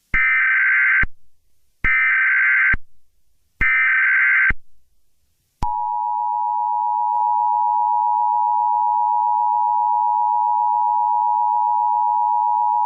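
Emergency Alert System broadcast opening. First come three separate, roughly one-second bursts of buzzy SAME header data tones. About five and a half seconds in, the steady two-tone attention signal starts and holds unbroken.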